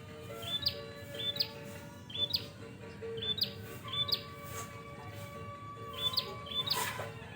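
Caged songbirds chirping over and over in short, high, rising notes, often in pairs, with held steady tones underneath and a louder rough burst near the end.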